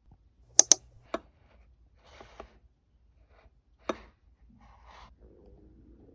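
A few sharp taps or clicks: two in quick succession about half a second in, another a moment later and one more near the middle, with quieter rustling between them.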